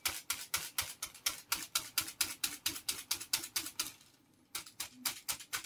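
Slatted wooden folding hand fan waved fast back and forth close to the face, making quick whooshing strokes at about four or five a second, with a brief pause about four seconds in.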